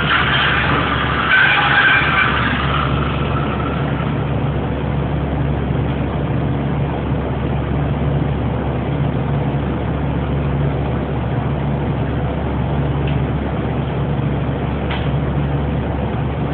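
Steady machinery drone of a meat-plant cutting room, a low hum wavering about once a second under an even rushing noise. A faint pitched whine runs through the first few seconds, and there is a short click near the end.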